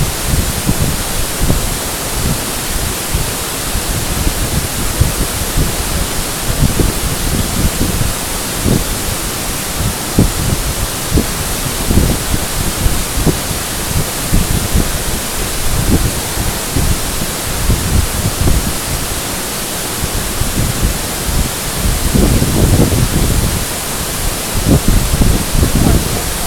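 Waterfall rushing as a loud, steady hiss, with irregular low buffeting on the microphone.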